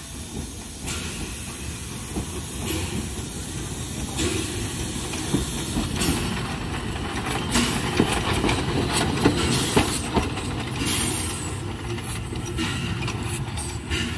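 A train running past on a local railway line: a steady rushing noise with irregular clacks of wheels over rail joints, loudest about halfway through.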